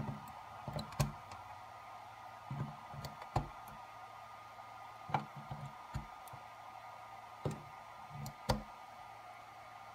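AA NiMH batteries pushed one at a time into the spring-loaded slots of a Powerex MH-C980 battery charger, each seating with a short cluster of clicks and knocks, four times over.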